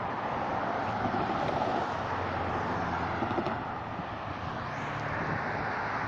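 Road traffic noise: a steady rumble of vehicles, a little louder a second or two in. No crossing bell is heard.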